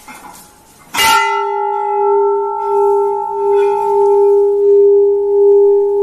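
A 51 kg brass temple bell (ghanta) struck once about a second in, then ringing on with a steady low hum and several higher overtones that waver slowly in loudness.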